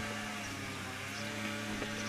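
A steady low hum with no change in pitch.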